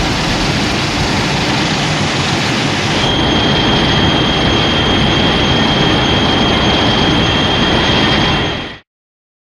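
Shin Godzilla beam sound effect: a continuous loud rushing, hissing blast. A high steady whine joins about three seconds in, and the sound cuts off suddenly near the end.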